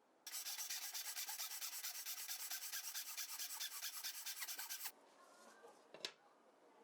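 Wood being abraded by hand in rapid back-and-forth strokes, about six a scratchy strokes a second, which stop suddenly after about four and a half seconds. A single sharp click follows about a second later.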